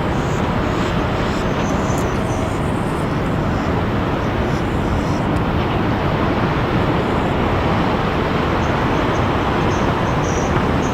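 Jet airliner engines running with a steady, even noise that neither rises nor falls.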